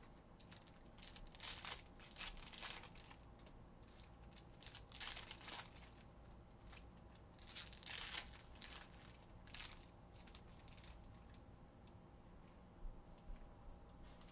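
Trading cards being handled off a stack: a few short, faint rustles and flicks of card stock, spread irregularly.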